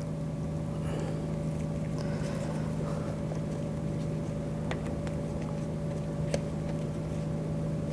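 A steady low mechanical hum, with a few faint light clicks about halfway through.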